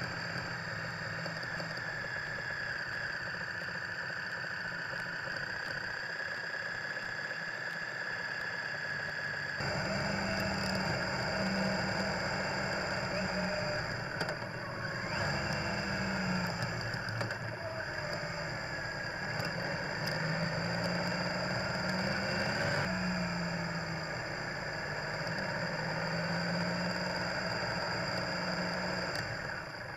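Triumph Tiger Explorer's three-cylinder engine running while under way, mixed with wind and road noise, picked up by a bike-mounted dash camera's microphone. After a cut about ten seconds in, the engine note rises and falls as the throttle changes. A steady high whine sits over it throughout.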